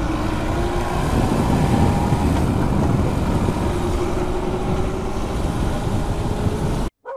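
Motorcycle riding along, its engine running under the steady rush of wind and road noise; the engine note rises as the bike picks up speed after a turn. The sound cuts off suddenly near the end.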